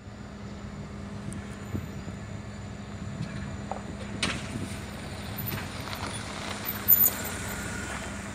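Street traffic: a motor vehicle engine running with a steady hum, a van pulling up close near the end, and one short sharp noise about seven seconds in.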